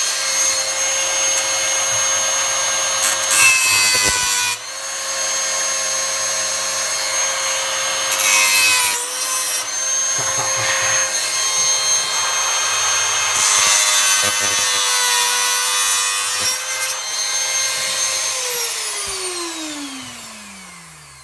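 Dremel rotary tool running at a steady high whine, grinding through the metal back cover of a laptop in three bursts of harsher cutting noise. Near the end it is switched off and winds down, its pitch falling as it fades.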